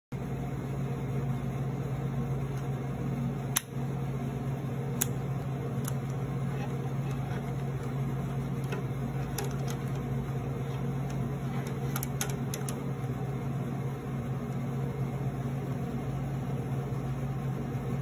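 Steady low hum of room machinery, such as ventilation or an appliance motor. Over it come a few sharp clicks and taps as a laptop power adapter and its cord are handled, the loudest about three and a half seconds in.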